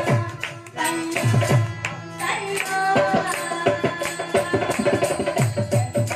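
A live bhajan ensemble playing: hand-drum strokes with bending bass notes in a steady rhythm over held harmonium tones, with the singer's voice entering briefly between about two and three seconds in. The drumming drops out for a moment just before one second, then resumes.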